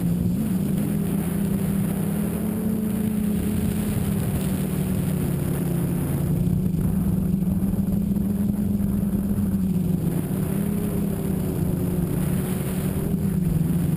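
Tricopter's electric motors and propellers buzzing steadily in flight, the pitch wavering a little up and down with the throttle.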